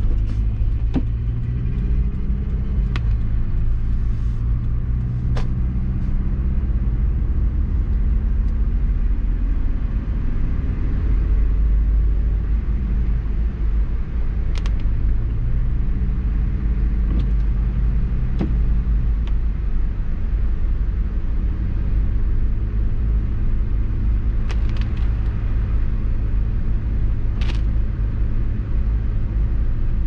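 Cabin sound of a 2005 Subaru Forester X driving on snow tires: a steady low rumble of tires and road, with the engine's hum sliding down and back up in pitch a few times as the speed changes. A few light clicks are scattered throughout.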